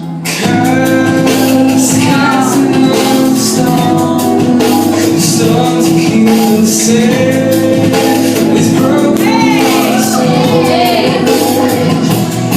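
Recorded song with a singer's voice over sustained chords, played loud; it swells up about half a second in.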